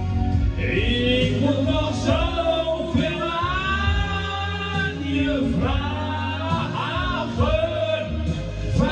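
Man singing a slow song into a handheld microphone over an instrumental backing, his voice gliding between long held notes above a steady bass.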